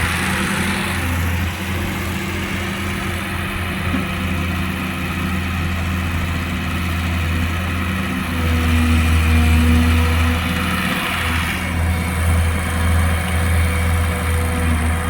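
Sumitomo LS260 excavator's diesel engine running steadily with a low hum, growing a little louder about eight seconds in for a few seconds.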